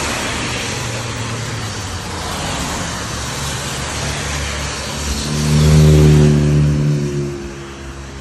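Cars passing on a wet road, with a steady hiss of tyres on the soaked asphalt. One vehicle passes close, loudest about six seconds in, its engine tone falling in pitch as it goes by and fades.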